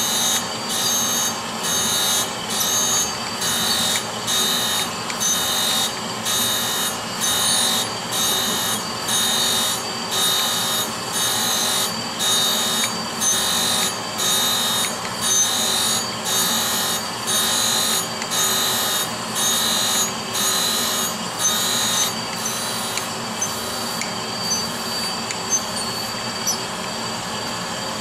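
Brown & Sharpe Micromaster 510 surface grinder grinding steel: the wheel spindle runs steadily while the grinding hiss swells and dips about once a second as the table carries the part back and forth under the wheel. About three-quarters of the way through the rhythm fades and the machine runs more evenly.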